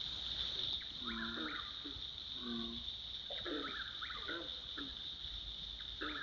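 Beavers calling to each other: a run of short, nasal, pitched whines, several of them bending up or down, repeated every half second or so. A steady high-pitched chorus runs underneath.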